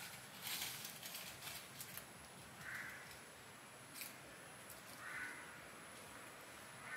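A crow cawing, single hoarse caws about three seconds in, again past five seconds and near the end, over light crackling rustles and a thin, steady high-pitched whine.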